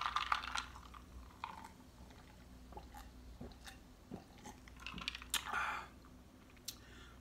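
Carbonated ginger ale fizzing over ice in a glass jar held close to the microphone, the crackle of bubbles fading within the first second into scattered small pops and clicks, then drinking sounds with a louder swallow about five seconds in.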